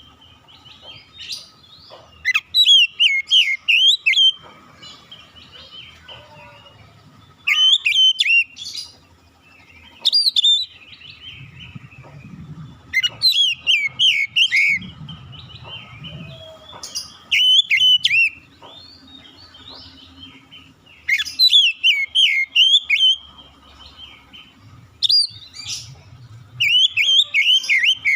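Oriental magpie-robin (kacer) singing: loud bursts of rapid, warbling whistled phrases, each a second or two long, repeated about every two to four seconds with short pauses between.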